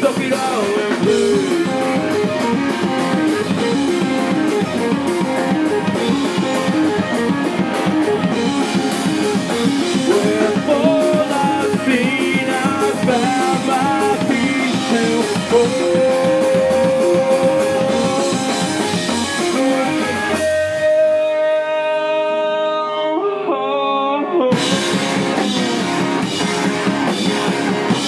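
Live rock band playing, with electric guitars and drum kit. About twenty seconds in, the drums and low end drop out for a few seconds, leaving a guitar ringing alone, and then the full band comes back in.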